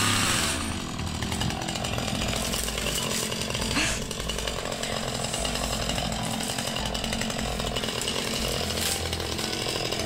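Two-stroke petrol chainsaw running steadily as it cuts through small dry saplings at their base.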